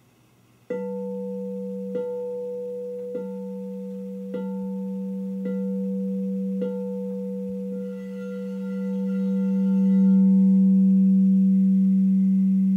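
Frosted quartz crystal singing bowl struck six times, about once a second, each strike ringing on as a deep hum with higher overtones. After the strikes the hum swells louder and holds, and a second, higher bowl tone joins in.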